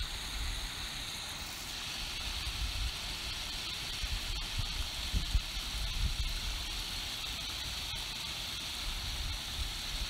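Shallow stream babbling over a pebbly bed: a steady, even rush of water.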